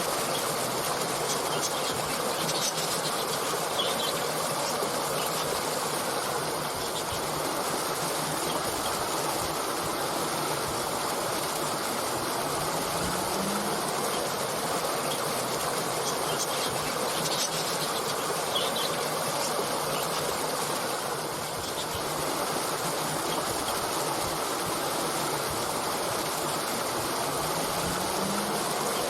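Steady rushing of a flowing stream, with a few short bird chirps about three seconds in and again a little past the middle.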